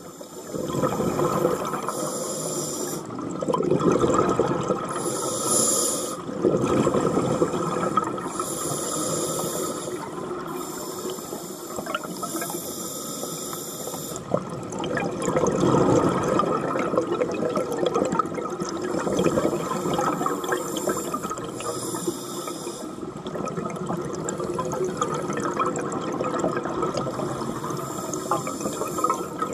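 Scuba regulator breathing heard underwater: repeated hissing inhalations through the regulator alternate with noisy bursts of exhaled bubbles, a few seconds apart, over a steady underwater wash.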